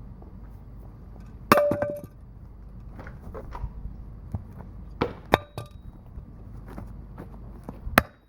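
Several hard hammer blows striking a small generator engine's block, some with a brief metallic ring: about four strikes, one a second and a half in with quick rebounds, two close together about five seconds in, and one near the end.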